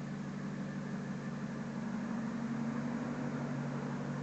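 A 1999 Ford F-250's 5.4-litre Triton V8 idling steadily.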